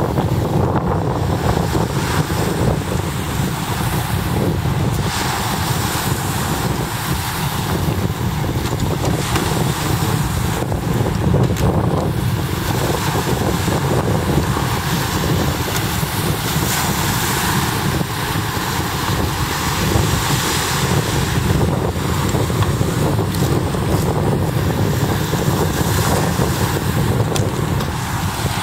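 Wind buffeting the microphone in a steady low rumble, with waves breaking on a pebble beach.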